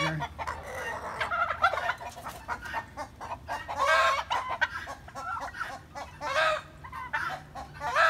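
Chickens clucking and calling, with louder calls about a second and a half in, around four seconds and again past six seconds.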